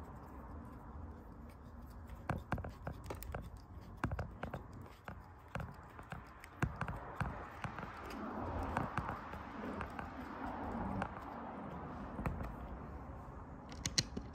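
Small metal clicks, taps and scrapes from a folding hex-key tool working the grub screw of an FCS G5 surfboard fin, with hands handling the tool, a stretch of rustling in the middle and a quick run of sharp clicks near the end.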